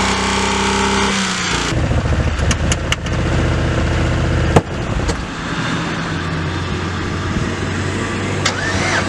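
Chevrolet Impala engine running hard at high revs, deliberately pushed to try to blow the motor, and it keeps running. A single sharp crack about four and a half seconds in, after which it runs on at a steady lower pitch.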